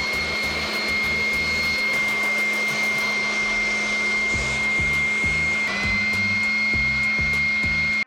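Cordless electric blower running steadily with a high-pitched motor whine as it blows air over a bicycle crankset spindle and crank arm. The whine wavers briefly about two-thirds of the way through and stops abruptly at the end.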